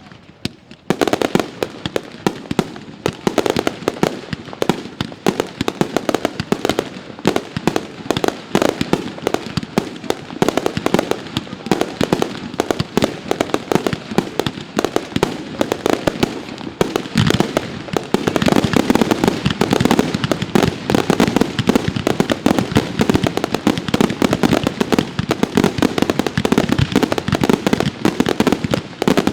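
Fireworks display: a dense, continuous barrage of rapid bangs and crackles, growing louder about two-thirds of the way in.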